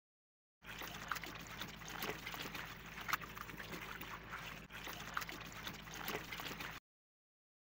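Water running and splashing over a bunch of fresh spinach as hands rub and rinse the leaves, with small wet rustles and clicks. It starts about half a second in and cuts off suddenly near the end.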